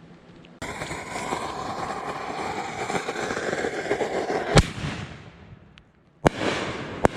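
6-inch double-break canister shell fireworks: a sudden rushing hiss with crackle starts about half a second in and runs for about four seconds, then a sharp bang. After a brief lull, two more sharp bangs come close together near the end.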